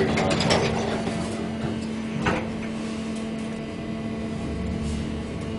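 A steady low hum runs throughout. Over it come rustling and knocks from the camcorder being handled against clothing, mostly near the start and once more about two seconds in.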